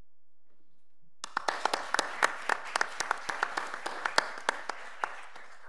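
Audience applauding, starting suddenly about a second in and dying away near the end.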